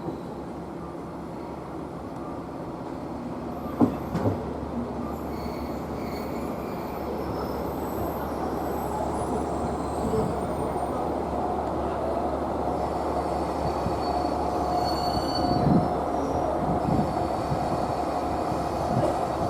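A train approaching and running past, its rumble growing louder, with a thin steady wheel squeal setting in about halfway and a few knocks of wheels over rail joints near the end.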